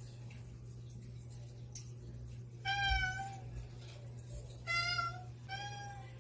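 Domestic cat meowing three times at a closed door, asking to be let out: one longer meow about three seconds in, then two shorter ones close together near the end.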